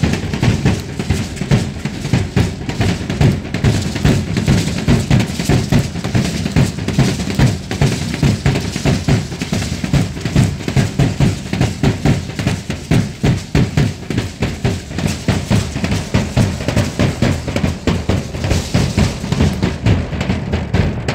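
Drums of a Mexican danza group playing a fast, steady dance beat, deep bass-drum strokes with snare-like hits on top.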